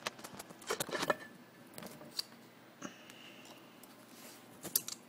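Banks Sidewinder TE06H turbocharger housings being worked apart by hand: the compressor housing, still sticking a little, is pulled off the center housing with a run of metal clicks, knocks and scrapes, thickest about a second in and again near the end.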